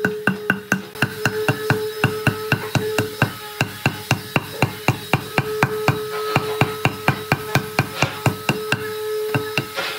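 Claw hammer striking the bark of a log in rapid, even blows, about four to five a second, knocking the bark loose, with a steady tone underneath.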